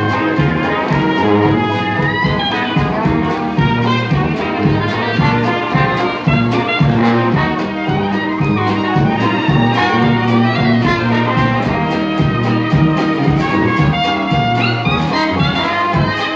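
Live traditional New Orleans jazz band playing: trumpet, trombone and clarinet over a tuba bass line, with banjo and guitar keeping a steady beat.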